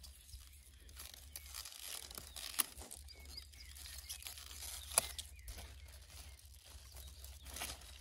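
Sea kale leaves being snapped and torn from the plant by hand: rustling and crackling of the thick leaves, with a couple of sharper snaps, over a low steady rumble.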